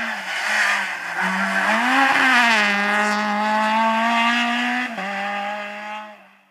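Rally car engine revving hard as the car accelerates away out of a hairpin, its pitch climbing about two seconds in and holding high. It dips briefly about five seconds in, then fades as the car draws away.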